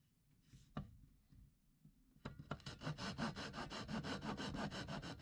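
Small fine-toothed Japanese pull saw cutting into a wooden dowel with rapid, even short strokes, starting about two seconds in. A single light knock comes just under a second in.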